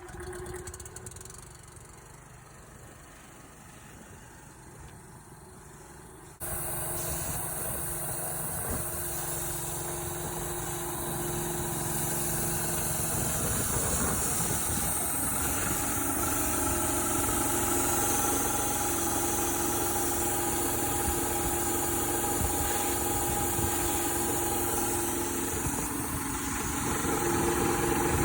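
Honda GX200 single-cylinder engine driving a piston air-compressor pump, running steadily. About six seconds in the sound steps up suddenly to a louder run with more hiss, and stays there.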